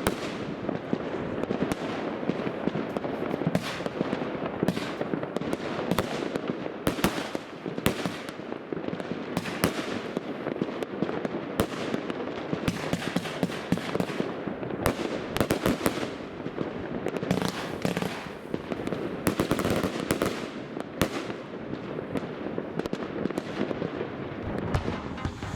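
RIAkeo 'Entspannung' fan-shaped compound firework cake firing a dense, continuous barrage of shots and bursts, many overlapping cracks every second.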